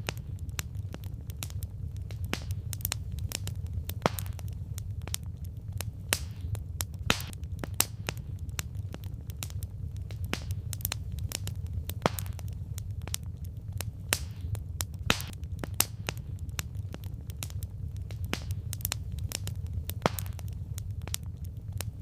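Firewood burning, crackling with irregular sharp pops and snaps, a few each second, over a steady low rumble.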